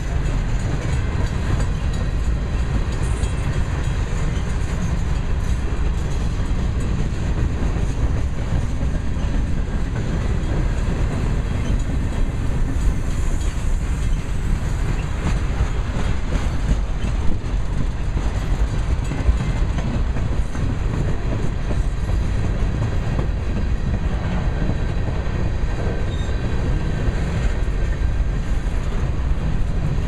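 Freight cars of a mixed manifest train (gondolas, flatcars, covered hoppers) rolling past at close range: a steady low rumble of steel wheels on rail, with one sharp knock about seventeen seconds in.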